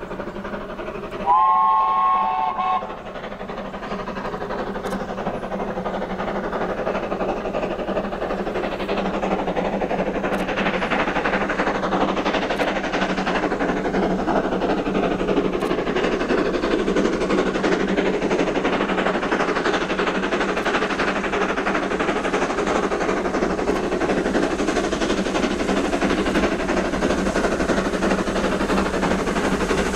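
A steam locomotive's whistle sounds one short blast about a second in. Then the working exhaust of the Terrier 0-6-0 tank engine Fenchurch, climbing a gradient, grows steadily louder as it approaches.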